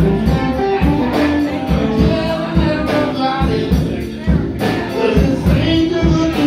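Live rock band playing: electric guitar, electric bass and drum kit over a steady drum beat, heard from inside the room.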